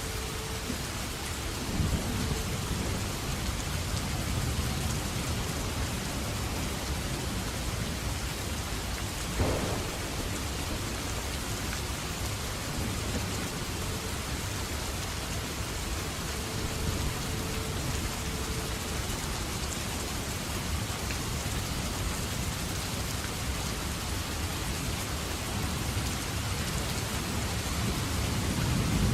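Steady heavy rain hissing, with thunder rumbling low underneath. A sharp crack comes about a third of the way through, and the rumble swells again near the end.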